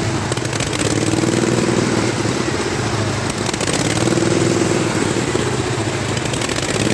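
Riding lawn mower engine running hard at wide-open throttle, its pitch and loudness swelling and easing back twice as the mower goes by.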